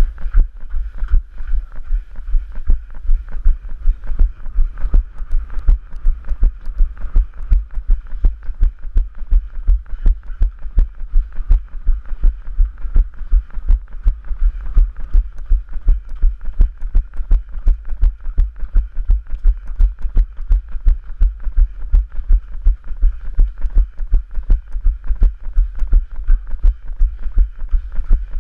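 Rhythmic low thuds of running footfalls, about three a second, carried through a head-mounted GoPro camera as its wearer runs on stone paving.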